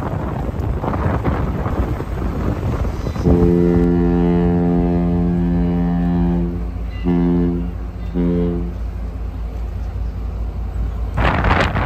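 Horn of the lake freighter CSL Assiniboine sounding one long blast of about three and a half seconds, then two short blasts, a steady low pitch with many overtones. Wind buffets the microphone throughout, most heavily near the end.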